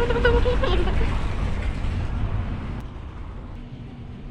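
Water pouring from a wall spout and splashing into a shallow basin, a loud, even rush with a heavy low rumble. About three seconds in it cuts away to a much quieter background with a faint steady hum.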